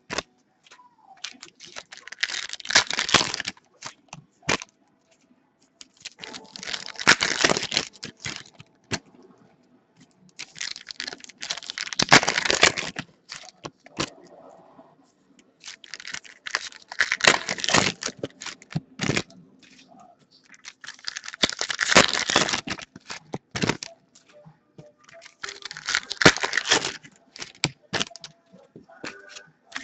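Trading card pack wrappers being torn open and crinkled, in bursts about a second long roughly every five seconds, with light clicks of handling in between.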